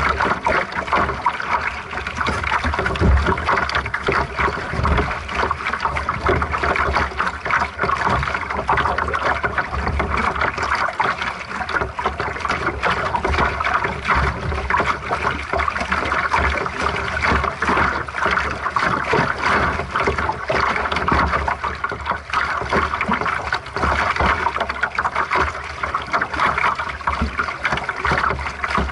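Water rushing and splashing along the hull of a small sailing dinghy as it moves under sail, steady throughout, with an uneven low rumble of wind on the microphone.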